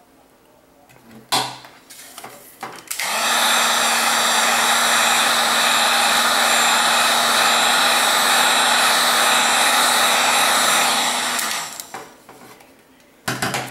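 Heat gun blowing steadily with a constant motor hum, softening the adhesive of an iPad Air 2's fused glass-and-LCD screen. It starts abruptly about three seconds in and fades out about eight seconds later, with a few sharp knocks from handling before and after.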